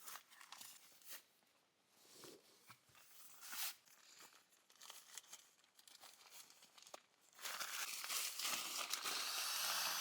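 Sea to Summit inflatable sleeping mat being unrolled, its nylon fabric crinkling and rustling in scattered bursts. Then, a little over seven seconds in, a steady rushing of air starts as the mat is blown up through its valve.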